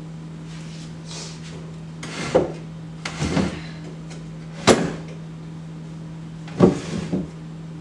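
Wooden kitchen cabinet doors and drawers being opened and shut: four bouts of knocks and bumps, the sharpest about halfway through, over a steady low hum.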